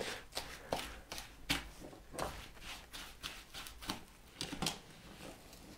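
A wooden spoon scraping and stirring in a ceramic bowl as butter is creamed with gritty brown sugar, making quick, irregular strokes about two or three times a second.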